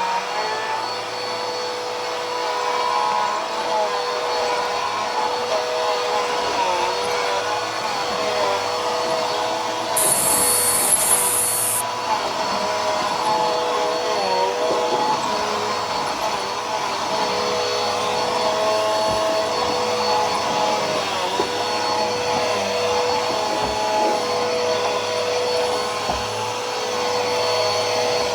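Bissell PowerForce Helix upright vacuum cleaner running steadily while being pushed, its motor whine wavering slightly in pitch. A brief high hiss about ten seconds in lasts about two seconds.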